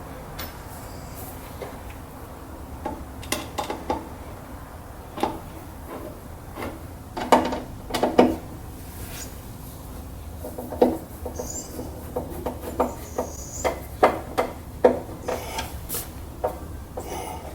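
Scattered clicks, knocks and light scrapes of hand work on a wooden drawer front as its screws are tightened, with a cluster of louder knocks about seven to eight seconds in.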